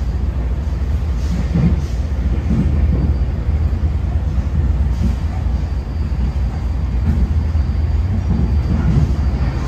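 Interior of a MARTA electric rapid-transit railcar running along the track: a steady, loud low rumble of the wheels and running gear. A faint high whine comes in about four seconds in.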